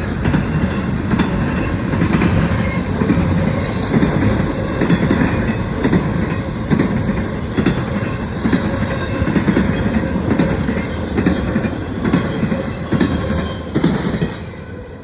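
Intermodal freight train cars rolling past, a steady rumble with the wheels clacking over rail joints and a brief high wheel squeal about three seconds in. The sound drops away just before the end.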